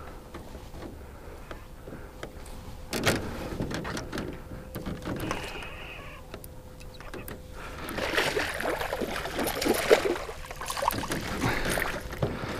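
Water splashing as a hooked bass thrashes at the surface and is scooped into a landing net. There is a short splash about three seconds in, and the heaviest splashing comes in the last few seconds.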